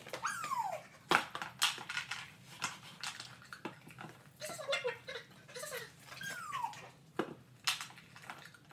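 Dog whining twice, each a short call that falls in pitch, with sharp clicks and knocks of toys being dropped into a plastic dog bowl.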